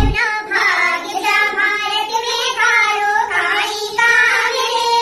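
Women's voices singing a song together in a high-pitched melody.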